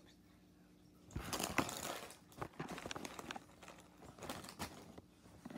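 Rustling and crinkling from something being handled close to the microphone, starting about a second in with a dense burst, then scattered small clicks and rustles. A faint steady hum sits underneath.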